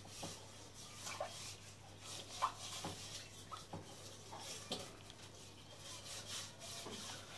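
Fingers handling and turning a small plastic toy car: soft rubbing with scattered light clicks and taps, the sharpest tap about two and a half seconds in.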